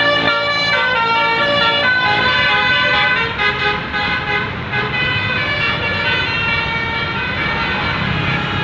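Basuri multi-tone bus horn (telolet) playing a melody through roof-mounted trumpet horns, its notes stepping up and down in pitch. After about three seconds the tune breaks off into a steady rumble of engine and street noise.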